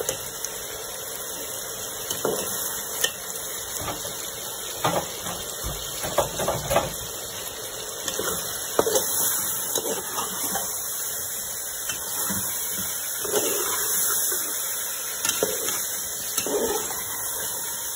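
A slotted metal spoon stirring chicken in a metal cooking pot, with scattered clinks and scrapes against the pot over a steady sizzling hiss.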